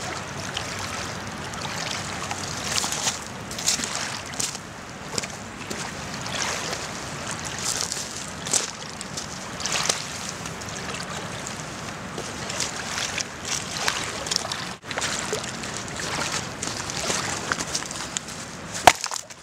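Small waves lapping and sloshing irregularly against a pebbly shore. A single sharp knock sounds near the end.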